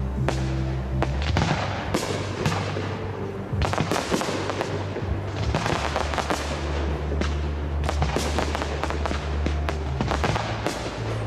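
Fireworks display: many aerial shells bursting and crackling in quick succession, layered over accompanying music with sustained low notes.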